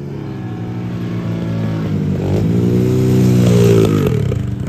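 Car engine revving, its pitch rising and falling, briefly near the start and then in a longer, louder rev that peaks near the end.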